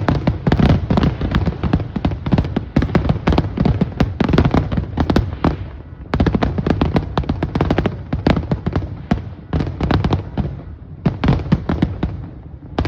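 Aerial fireworks in a dense, rapid barrage of overlapping bangs, the grand finale of a fireworks show. The volley thins briefly about six seconds in and again near the end.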